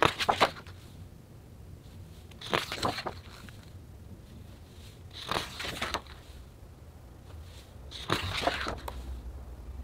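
Pages of a large hardcover photobook being turned by hand, four times at about two-and-a-half-second intervals, each turn a short crackling rustle of stiff, heavy paper.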